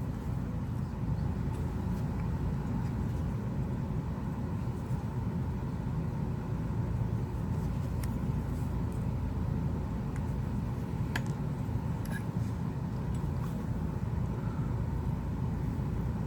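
Steady low rumbling hum with a few faint, light clicks of small parts or tools being handled.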